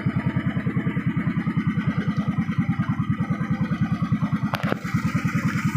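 Small boat engine running steadily with a rapid, even putt. A single sharp click sounds about four and a half seconds in.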